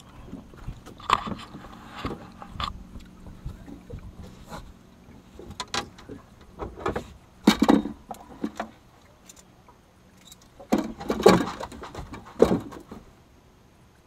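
Irregular knocks, thumps and clatter on a fishing boat's deck as a netted fish and the landing net are handled, with a few louder thumps about halfway and near the end. A faint steady hum runs under the first few seconds.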